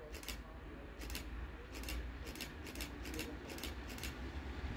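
Low rumble of an approaching PKP Cargo ET22 electric locomotive, heard from a distance, with a series of short, sharp hissing sounds, about eight of them over four seconds.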